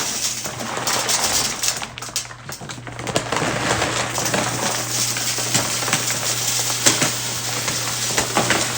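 Crisp crunching and crackling, with many small sharp cracks, as taco shells are chewed and broken apart; it dips briefly about two seconds in.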